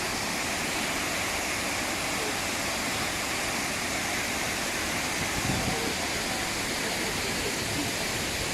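Shiraito Falls: hundreds of thin cascades pouring from a curved 20 m cliff, giving a steady, even rush of falling water.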